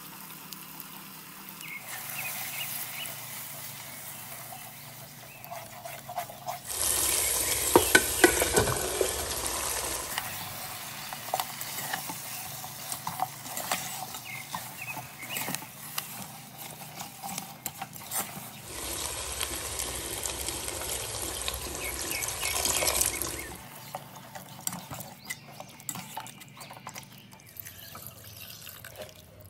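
Masala and mutton cooking in a nonstick kadai, with a spatula stirring and scraping through the gravy. It sizzles louder in two stretches, about seven and nineteen seconds in, the first with sharp knocks.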